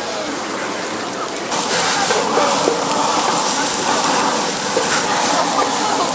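Abalone and conch sizzling in butter on a hot griddle, a dense steady hiss that grows louder about a second and a half in.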